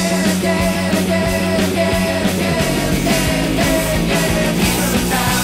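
Rock music soundtrack with a steady drum beat.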